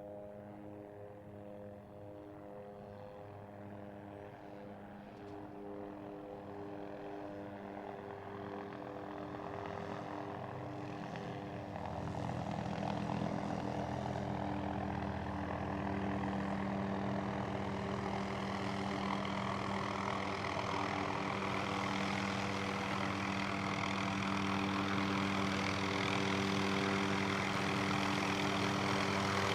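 Helicopter engine and rotor spinning up, growing steadily louder, with a jump in level about twelve seconds in and a rising rush of turbine and rotor noise on top of the steady engine tones.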